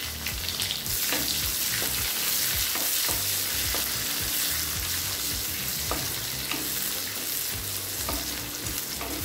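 Sliced onion sizzling in hot oil in an aluminium kadai while being sautéed, with a spatula scraping and tapping against the pan now and then.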